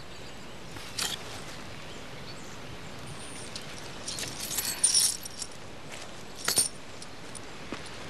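A few light metallic clinks: a single click, then a short jingling cluster about four to five seconds in, then another sharp click, over a faint steady outdoor background.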